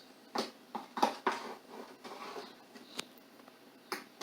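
Spatula spreading cake batter in a baking pan: a handful of irregular soft taps and scrapes against the pan.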